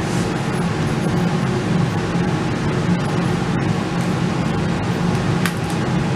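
A steady low mechanical drone runs throughout, with a brief faint crackle of plastic transfer tape being handled about five and a half seconds in.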